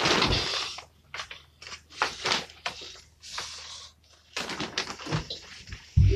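Bedding and clothing rustling with light knocks as someone climbs about on a wooden bunk bed, in irregular bursts, with a heavy thud near the end.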